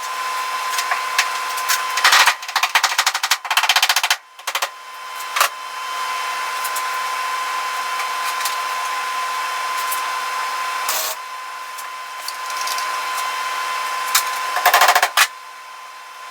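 A sandblaster gun blasting rusty sheet steel: a steady hiss of air and grit, broken by a few short bursts of very rapid rattling, about two and four seconds in and again near the end.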